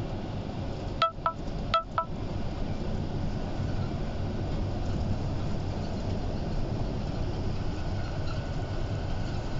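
Steady engine and road rumble heard inside a moving bus. About a second in, four short chiming tones sound in two quick pairs.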